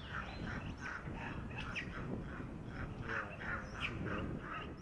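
A rapid series of short, high animal calls, about three or four a second, with a few sharper, higher chirps among them.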